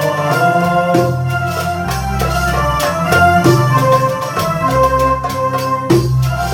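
Live band playing Egyptian belly dance music: a keyboard with an organ-like sound holds a sustained melody over an electric bass line and steady riq tambourine and drum strokes.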